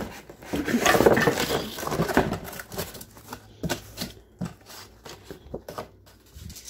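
Cardboard box flaps being pulled open and handled: rustling and scraping of cardboard for the first two and a half seconds or so, then scattered light taps and knocks.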